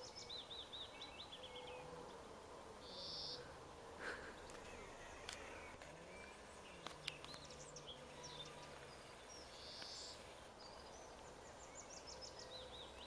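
Faint field ambience with a songbird's repeated high chirping, and a cat's low drawn-out growl twice, the longer one about six seconds in.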